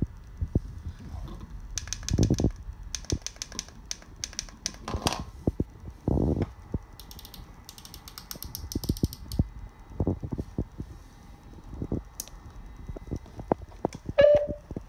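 Irregular clicks, taps and short rattles of hands handling a small mobile CB radio, its power leads and coiled microphone cord, with button presses. A short beep comes near the end.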